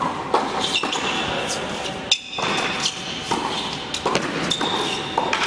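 Indoor tennis rally: several sharp racket strikes and ball bounces on a hard court, echoing in a large hall, with short high squeaks of tennis shoes on the court surface.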